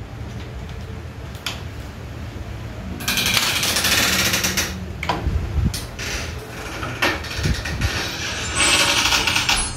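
Sony CDP-C315 five-disc carousel CD player's disc tray drawing shut under its own loading mechanism. There are two stretches of mechanical whir and rattle, one about three seconds in and one near the end, with single clicks of the mechanism between them.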